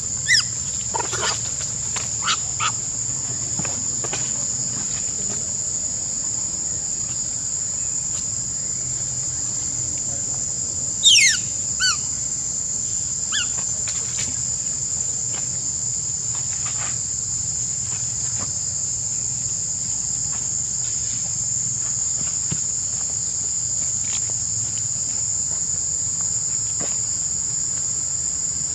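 Steady high-pitched drone of insects singing. About eleven seconds in come a few short, sharp calls that fall quickly in pitch, with a few light clicks in the first seconds.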